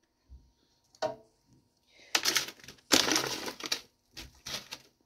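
Frozen strawberries being picked out of a thin plastic punnet by hand: several short clattering, crackling bursts as the hard frozen berries knock against each other and the plastic.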